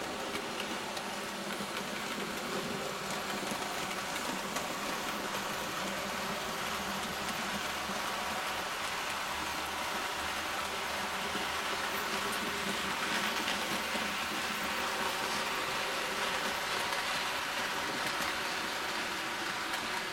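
00 gauge model trains running along the layout's track: a steady rolling hiss and rattle of wheels on rails, swelling a little partway through as coaches pass close.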